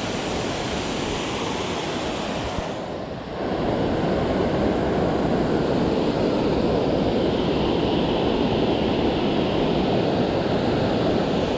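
Steady rushing of flowing water. It dips briefly about three seconds in, then comes back louder and stays even.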